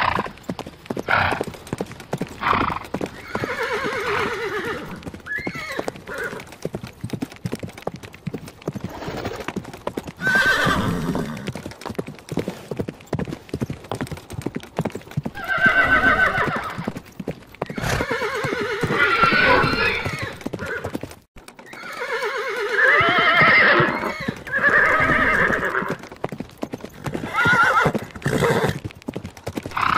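Horses neighing and whinnying several times, long pitched calls that rise and fall, over the clip-clop of hooves.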